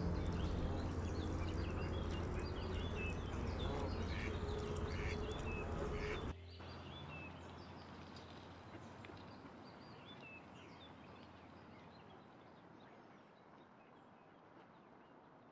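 Mallard ducks calling among outdoor ambience, with many short high chirps over a low rumble. About six seconds in the sound drops suddenly, then fades slowly with a few chirps left.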